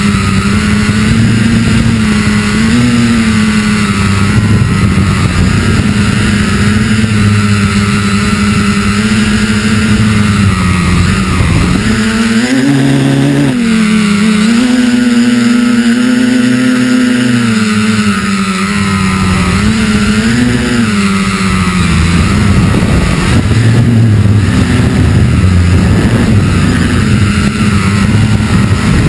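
FPV quadcopter's electric motors and propellers buzzing in flight, the pitch wavering with throttle changes and dipping then recovering about midway.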